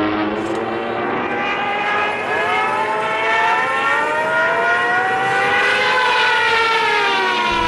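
Hand-cranked mechanical air raid siren winding up: its wailing tone rises steadily in pitch from about two seconds in, then levels off near the end. A steady drone fills the first two seconds before the wind-up.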